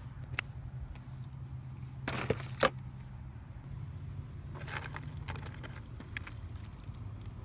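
Rummaging through a tackle box: scattered clinks and short clatters of small metal lures and hooks being handled, over a steady low hum.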